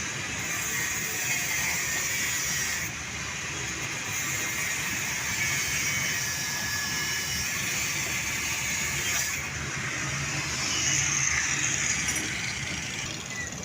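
Metalwork on a steel motorcycle exhaust pipe: grinding and welding noise, a steady hissing screech with a thin squeal in it. The sound changes abruptly twice, at about three seconds and again near nine and a half.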